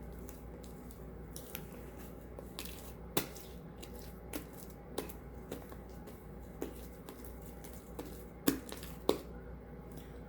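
Sticky shaving-foam slime being kneaded and pulled by hand, giving irregular short sticky clicks and pops as air trapped in the slime escapes, the two loudest close together near the end.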